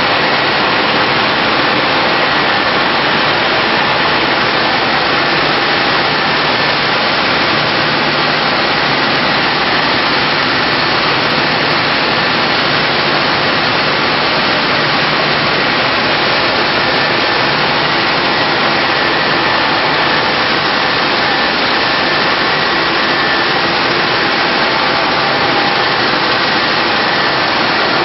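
Seed-cleaning machinery of a millet processing line running, including the gravity separator and its vibration motors: a loud, steady machine noise with a few faint steady tones in it.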